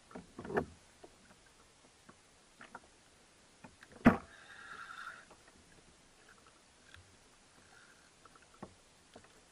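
Scattered knocks and clicks of a jigging rod and spinning reel being worked while fighting a hooked amberjack from a kayak. One loud sharp knock comes about four seconds in, followed by a short whir from the reel.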